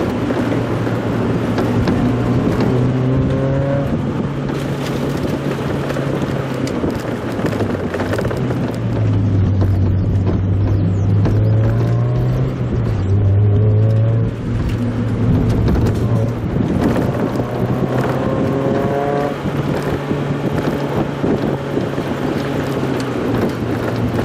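Mazda Roadster's four-cylinder engine running on a drive, its pitch climbing several times as it revs up through the gears and dropping between, over steady wind and road noise.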